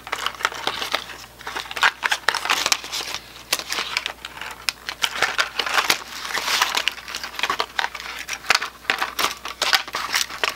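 Cardboard toy packaging being handled and pulled apart by hand, crinkling and rustling with many small irregular clicks.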